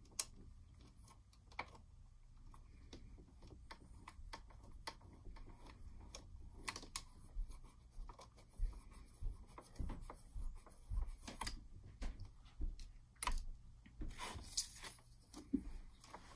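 Needle plate screw on a Janome sewing machine being fitted and turned in with a small screwdriver: faint metal-on-metal clicks and scraping. In the second half there is a run of soft knocks, about two a second.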